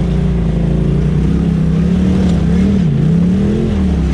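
Side-by-side UTV engine running under varying throttle while crawling over a rutted dirt trail, its pitch dipping about three seconds in and rising again.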